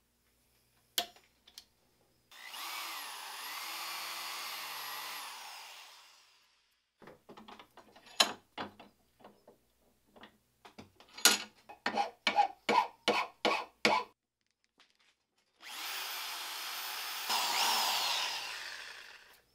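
Handheld power drill running twice, drilling a small centre hole into the end of a cast aluminium bar clamped in a vise, its motor whine wavering in pitch. Between the two runs comes a quick series of sharp clicks and knocks.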